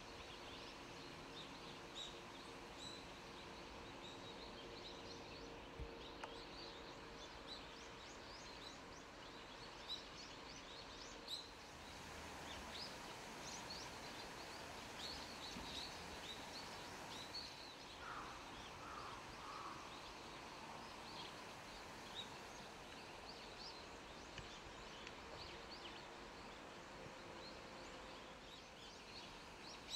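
Faint outdoor ambience: birds chirping in short, scattered notes over a steady background hiss, with a brief run of lower calls a little past the middle. A faint steady hum sits underneath for the first ten seconds or so.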